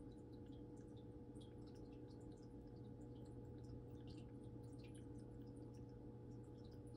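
Faint steady hum of a small aquarium filter, with scattered tiny ticks of dripping and bubbling water.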